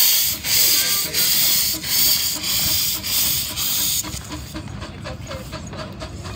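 Miniature steam locomotive moving off with its cylinder drain cocks open: loud steam hissing in pulses about twice a second. The hiss cuts off about four seconds in, leaving the quieter running of the train as it rolls away.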